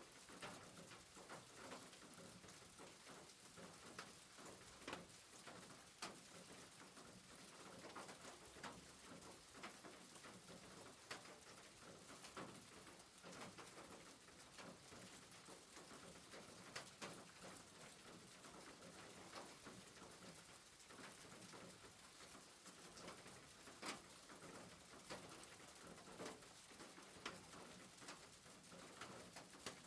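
Faint rain on a rooftop: a steady hiss with irregular drops tapping sharply every second or so.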